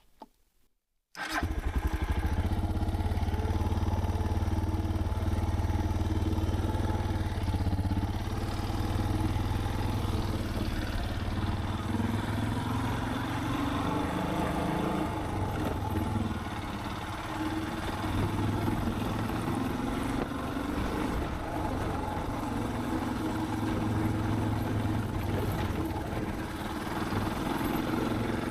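Suzuki DR650's single-cylinder engine running under way, its pitch rising and falling in places with the revs. The sound cuts in abruptly about a second in after a moment of silence.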